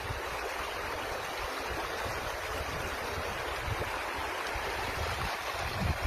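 Shallow river water flowing over stones: a steady rushing, with occasional low rumbles.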